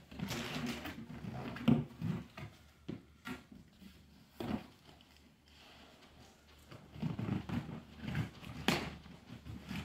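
Large cardboard box being handled: flaps folded back and an inner box shifted, with scattered rustling and knocks. Two sharper knocks stand out, one a couple of seconds in and one near the end, with a quieter stretch in the middle.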